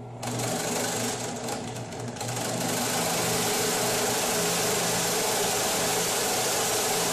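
Drill press running with a step bit chamfering the edge of a hole in 3 mm aluminium plate. It is a steady hiss of cutting over a faint motor hum, with some uneven scraping in the first two seconds.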